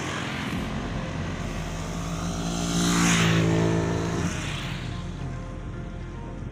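A motor vehicle passing by: its engine hum and tyre noise grow to a peak about three seconds in, then fade away.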